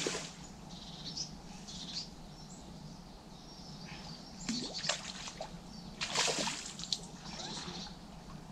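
A hooked tench splashing and thrashing at the surface close to the bank as it is played towards the landing net. It comes in bursts: one at the start, another about four and a half seconds in, and the loudest about six seconds in.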